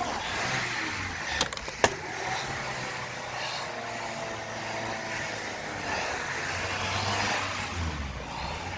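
A motor vehicle's engine running close by over steady outdoor noise, with two sharp clicks about a second and a half and two seconds in.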